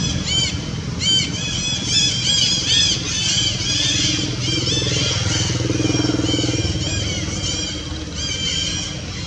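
Low engine hum of a motor vehicle, swelling between about five and six and a half seconds in, under a steady stream of short high chirps that thin out near the end.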